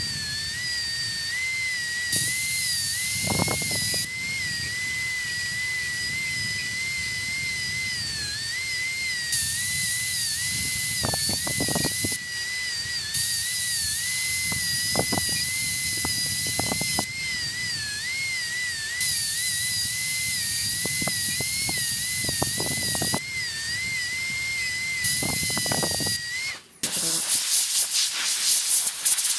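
High-speed air-turbine dental handpiece whining steadily as its bur cuts a Class I cavity into a plastic typodont molar, the pitch wavering slightly as the bur is loaded. A hiss comes and goes over the whine. The whine stops shortly before the end and a couple of seconds of hissing follow.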